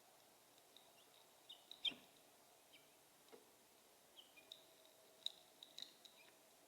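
Faint, short high chirps of small birds, scattered irregularly, several sliding downward in pitch, with a sharp tap about two seconds in and another near five seconds.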